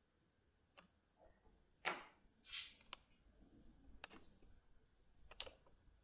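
About half a dozen faint clicks and light taps of small metal lock parts (TESA ST6 lock cylinders and keys) being handled, spread over several seconds.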